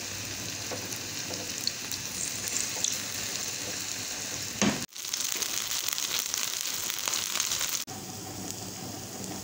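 Batter-coated potato cutlets shallow-frying in hot oil: a steady sizzle with scattered crackles and pops. It breaks off sharply about halfway through and comes back louder, then drops back again near the end.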